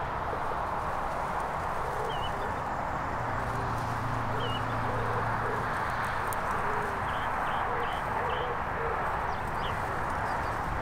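Lakeside outdoor ambience: a steady rushing background noise, with small birds chirping now and then and short groups of low cooing calls.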